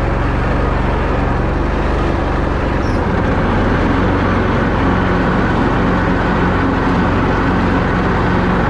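John Deere zero-turn riding mower running steadily under load, its engine note and blade noise filling the sound as it cuts tall grass with freshly sharpened blades; the engine's pitch shifts slightly about three seconds in.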